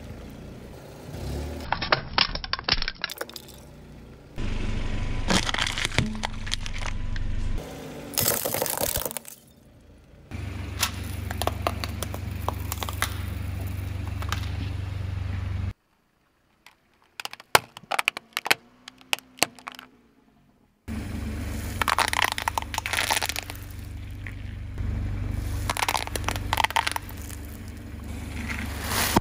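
A car tyre rolling over and crushing objects, heard as a run of sharp crunches, cracks and crackles of breaking plastic and shell, in several separate takes. A steady low engine rumble runs under most of the takes, with one quiet stretch in the middle that holds only a few sharp cracks.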